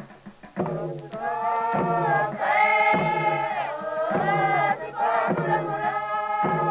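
Male voices chanting a traditional New Guinea song in short, held phrases on a few steady pitches.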